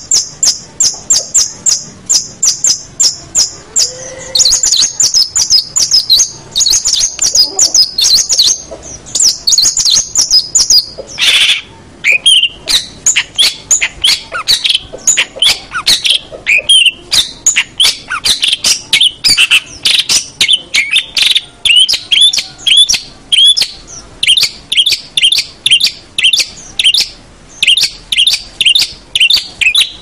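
Long-tailed shrike (cendet) singing a loud, fast, chattering song: a rapid run of high repeated notes at first, then varied twittering phrases, one harsher call about eleven seconds in, and strings of short quick notes to the end.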